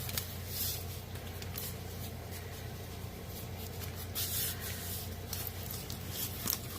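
A diamond painting canvas being handled, giving several short soft rustles and swishes over a steady low hum.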